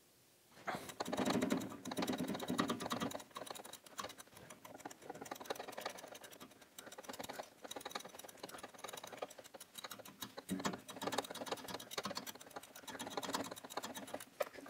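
Socket ratchet wrench clicking rapidly and unevenly as it is worked back and forth on a nut under a golf cart, starting about a second in. The nut won't come off because the stud turns with it.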